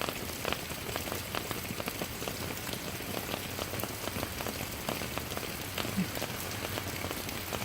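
Steady rain falling on surfaces, with many individual drops ticking sharply through the even hiss of the downpour.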